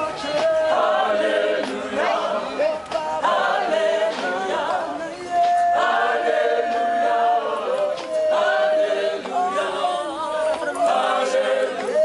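A cappella choir singing in harmony, phrases with several long held notes.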